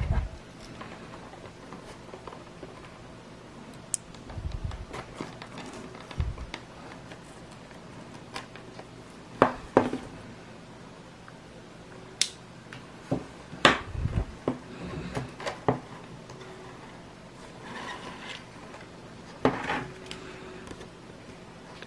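Plastic blister packaging being cut and pried open with a small folding multitool knife: scattered sharp clicks and plastic crackles, a few soft thumps of the package on the table, and the cardboard backing being pulled free near the end.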